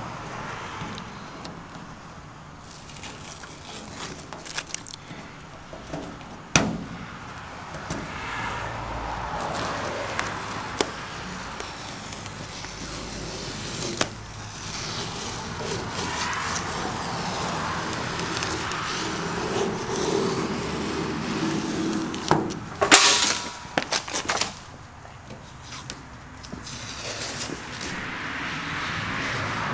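Masking tape and masking paper being peeled and pulled off freshly painted car bodywork and chrome grille trim: uneven crackling and tearing with sharp clicks, and a louder burst of ripping and crumpling a little past twenty seconds in.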